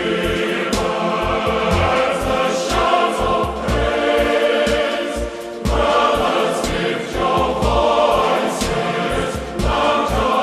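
Choir singing a church hymn with instrumental accompaniment, sung while Communion is being given out.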